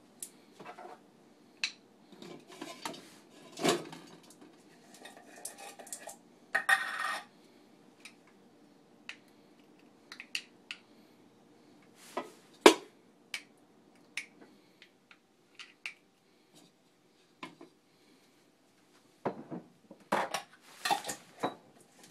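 Scattered clinks and knocks of kitchenware being handled: a metal stovetop popcorn pan, its lid and bottles on the counter. The loudest is a single sharp knock about halfway through, with a quick run of clattering near the end.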